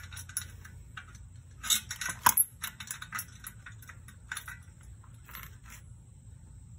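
Small metal clicks and clinks from pliers and metal parts knocking against a chrome motorcycle exhaust pipe while a baffle is fitted into it. There is an irregular run of taps, loudest around two seconds in, that thins out near the end.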